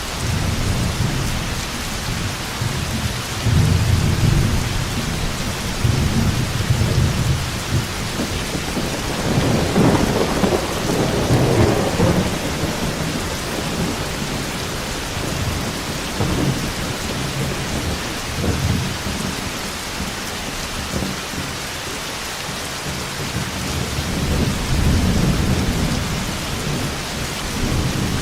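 Heavy rain with a steady hiss and rolling thunder, the rumbles swelling and fading several times; the loudest roll comes about ten seconds in.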